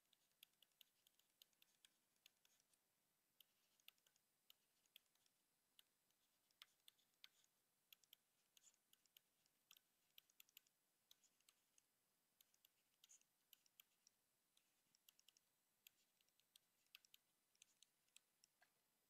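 Faint, irregular clicks and taps of a stylus writing on a tablet screen, sometimes several in quick succession.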